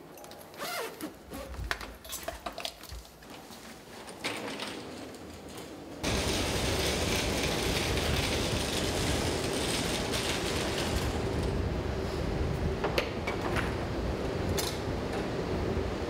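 Clicks and rustling as a fabric laundry bag with a fastened tag is handled. About six seconds in, this gives way to a loud, steady rumbling noise with a faint hum, with a few sharp latch clicks near the end.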